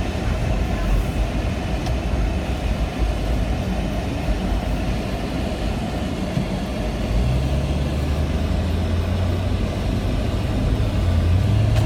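Car driving on a snowy road: a steady low rumble of engine and tyres. About seven seconds in, a low engine hum comes up more clearly, and it rises in pitch near the end as the car speeds up.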